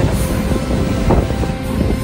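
Passenger train running at speed, heard from inside a carriage at the window: a steady rumble of wheels on the track with a few short knocks.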